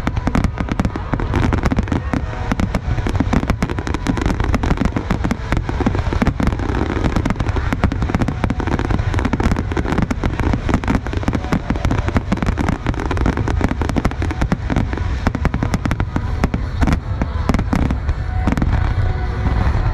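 Aerial fireworks bursting in rapid succession: a dense, continuous barrage of booms and crackles with no let-up.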